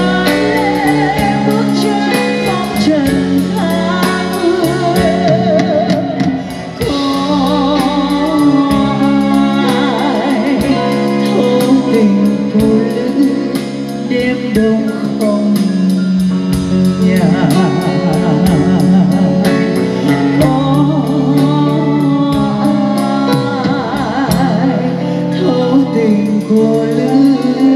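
Live band playing a slow ballad: drum kit keeping time with light cymbal ticks under keyboards and guitar, and a lead melody line wavering with vibrato.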